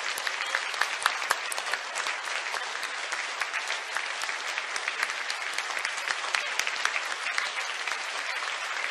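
A large audience applauding: dense, steady clapping that holds at an even level.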